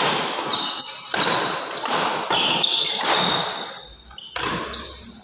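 Badminton rackets hitting a shuttlecock back and forth in a doubles rally, five sharp hits about a second apart, each echoing in a large hall.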